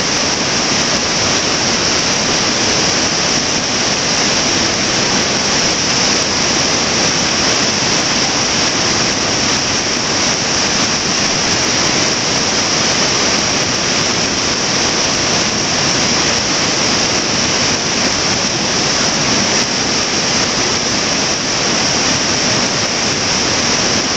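A river rushing: a loud, steady, even hiss of flowing water that never changes.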